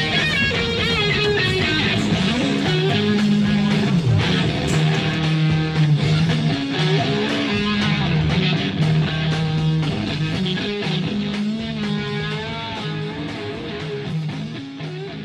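Rock music led by electric guitar with bending notes, fading out near the end.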